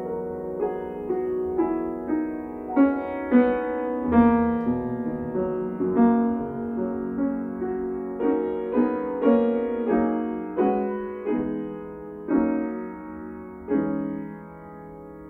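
Grand piano being played solo: chords and melody notes struck about once or twice a second, each ringing and fading, with the last chord near the end left to ring out softly.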